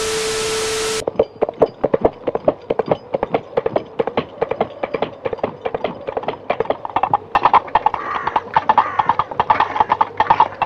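TV static hiss with a steady beep for about a second, then a horse galloping: a quick, continuous run of hoofbeats that grows louder and fuller about seven seconds in.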